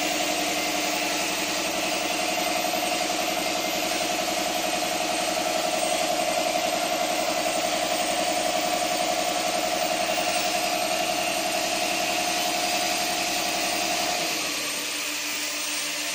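CNC tube bending machine (38CNC 2A1S) running at idle with a steady hum, the sound of its motor-driven hydraulic pump. About fourteen seconds in, the higher tone in the hum drops out, leaving a quieter low hum.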